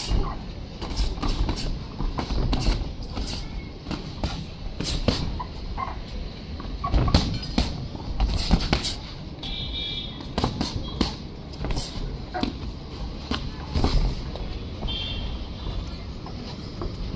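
Boxing gloves landing in irregular sharp thuds and slaps, with shuffling footwork, during a sparring bout; the knocks come unevenly, several to a second at times.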